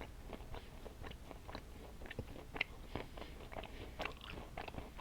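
A person chewing a piece of chocolate close to the microphone: a stream of small, sharp wet mouth clicks and crunches, irregular and fairly faint.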